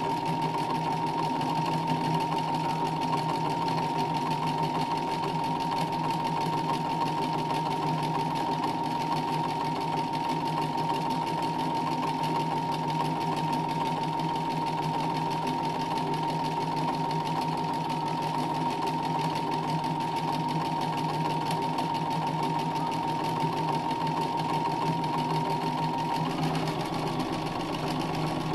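Domestic electric sewing machine stitching free-motion embroidery, the needle running continuously with a steady motor whine. The whine shifts slightly near the end.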